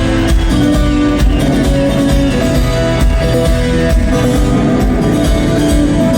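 Rock band playing live: guitars over a steady drum and bass beat, loud throughout.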